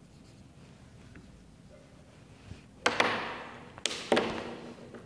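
Whiteboard marker handling: after a quiet start, a sharp knock with a short scraping tail about three seconds in, then two more quick knocks near four seconds in, the last also trailing into a brief scrape.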